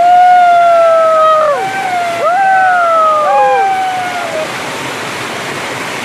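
Long drawn-out vocal calls from people hollering, several in a row and partly overlapping, each held a second or more and sliding down in pitch at the end. Under them runs the steady rush of a waterfall.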